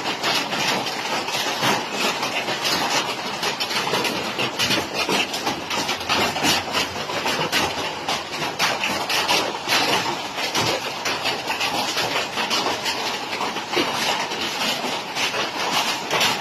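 Large hailstones falling heavily in a summer storm: a dense, continuous clatter of many impacts.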